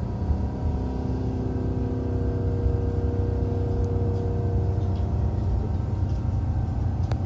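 Hanshin Railway commuter train running, heard from inside the carriage: a steady low rumble of wheels on the track with a faint steady hum over it, and one sharp click near the end.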